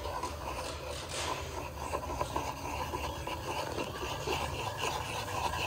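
Small plastic cup being swirled around in circles on a wooden tabletop: a continuous rubbing and scraping of plastic on wood.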